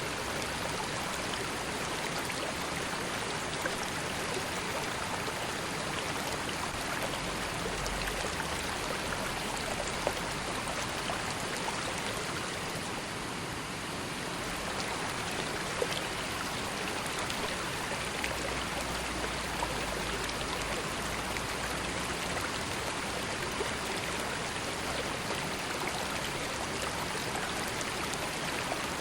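River water flowing steadily, a continuous rushing with small splashes and trickles through it.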